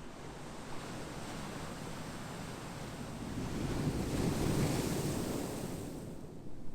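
Ocean waves on the shore: a wave swells and rushes in, loudest about four to five seconds in, then falls away.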